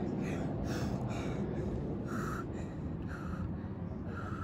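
A man breathing hard in short, forceful puffs, the strongest three about a second apart in the second half, over steady low background noise: the breathing of someone near exhaustion late in a long set of push-ups.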